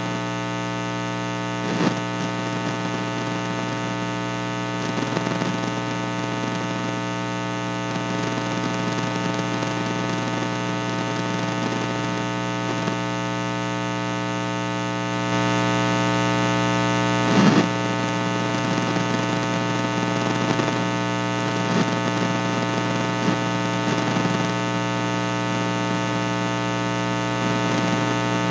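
Steady electrical mains hum, a buzz with many even overtones in the recording's audio. It steps a little louder about halfway through, and a few faint knocks sound over it.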